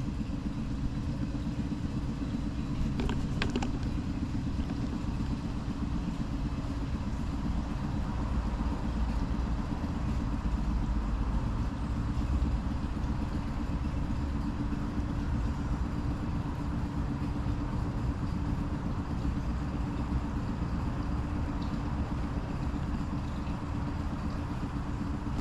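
Outboard motor of a small wooden skiff running steadily, a low, even drone, the engine freshly serviced with new spark plugs.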